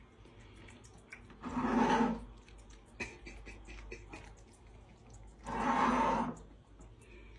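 A cat growling twice over its can of food, each growl under a second long, with faint small clicks of eating between.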